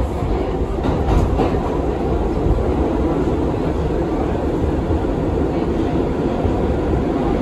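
R62A subway train running on the rails, a steady wheel-and-rail rumble, with a few light clicks about a second in.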